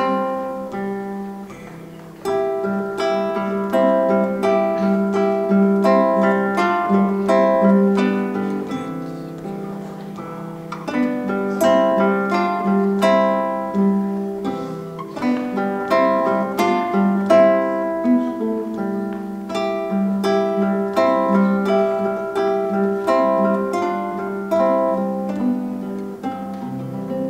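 Two classical guitars playing a duet: a plucked melody over sustained bass notes.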